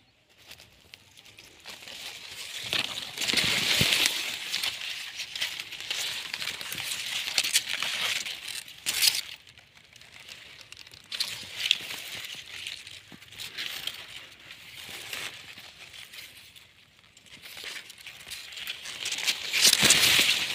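Sugarcane leaves, green and dry, rustling and scraping as the phone brushes through the crop, with light crackles; loudest about four seconds in and again near the end.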